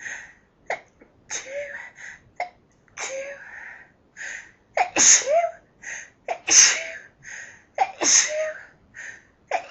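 A woman's sneezing fit: a rapid string of about six loud, voiced 'achoo' sneezes, one every second and a half or so, each with a quick catch of breath before it and the strongest ones in the second half. They are the burst of sneezes that comes after she has held them back as long as she could.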